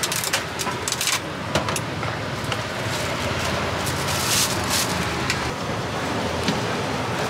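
Steady rumble of passing street traffic, with scattered sharp clicks and a few short hissing bursts on top.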